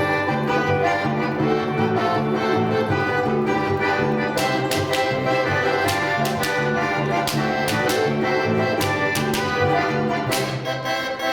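Small instrumental ensemble playing a medley of Russian folk tunes: sustained chords over a moving bass line, with sharp percussive strikes joining about four seconds in.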